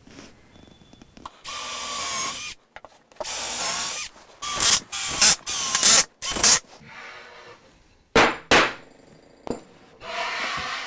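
Cordless drill boring holes into plywood in several short bursts, its motor whine wavering in pitch as it cuts, with two sharp clicks around eight seconds in.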